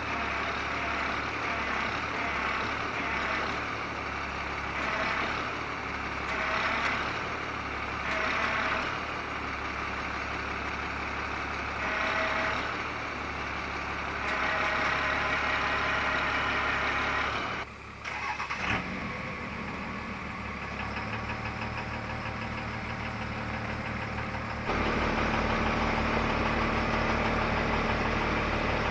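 Service truck's engine running steadily, with several short whining bursts from the truck's crane as it lifts a heavy diesel engine. The note changes abruptly twice, and in the last few seconds it settles into a steadier, louder engine hum.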